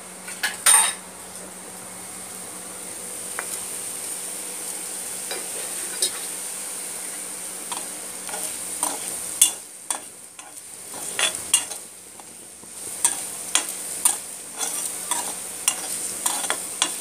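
Carrot and peanut fry sizzling in oil in a steel kadai while a metal spoon stirs it, scraping and clinking against the pan at irregular moments, more often in the second half.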